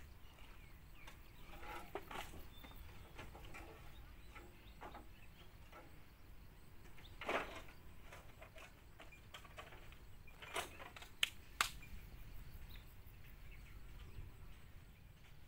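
Faint outdoor background ambience with a few brief, sharp clicks, one about seven seconds in and a cluster around ten to twelve seconds in.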